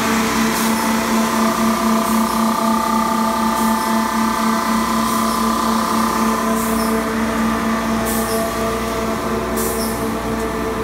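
Timesaver Series 100 belt grinder running: a steady machine hum with a strong low tone and several higher tones, and a short hiss about every second and a half.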